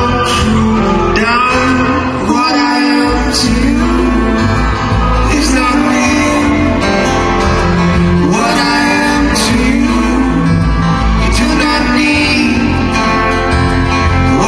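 Live acoustic-guitar ballad with singing: a strummed acoustic guitar under steady bass, with a male voice and then a female voice singing.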